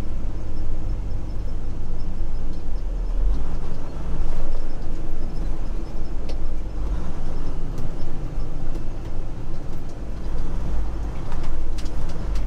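Steady engine drone and road rumble inside the cab of a Freightliner Cascadia semi truck under way.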